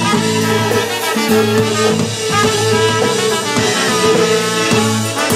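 Polka band playing live, a trumpet carrying the melody over a drum kit beat.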